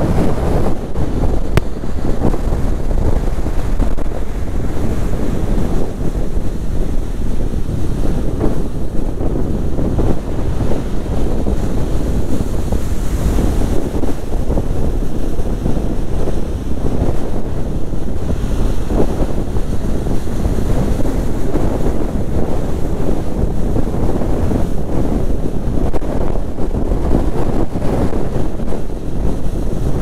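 Rough storm surf breaking and washing up a beach, driven by gale-force winds, with strong wind buffeting the microphone in a loud, steady, low rumble.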